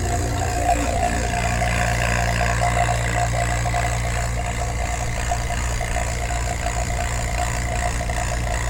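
A motor-driven machine running steadily, with a constant low hum and a steady mid-pitched tone.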